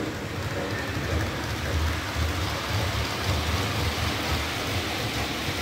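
Model train running along the layout's track: a steady rushing rumble of wheels on rail that rises and falls, over the hall's background noise.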